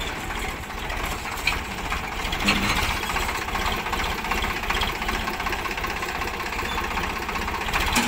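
Sonalika tractor's diesel engine running steadily with a fast, even chug.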